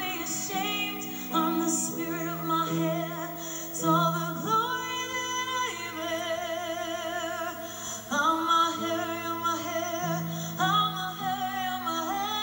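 Pop song: a woman singing held notes with vibrato over steady accompaniment whose bass notes change every second or two.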